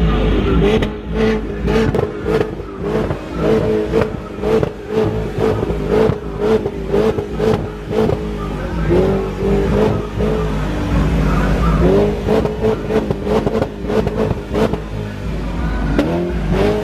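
A car engine running and revving, its pitch rising and falling a few times, with many sharp cracks along with it.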